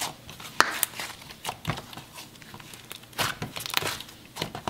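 Thick creamy butter slime being squished, folded and stretched by hand, giving an irregular string of sticky clicks and crackles, the sharpest about half a second in.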